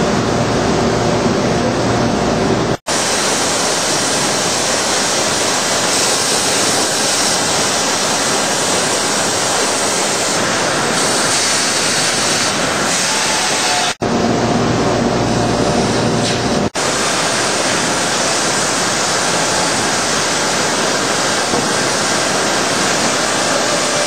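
Loud, steady rushing noise, broken by abrupt cuts about three seconds in, about fourteen seconds in and again near seventeen seconds. Some stretches carry a low rumble with faint steady hums, others a brighter hiss.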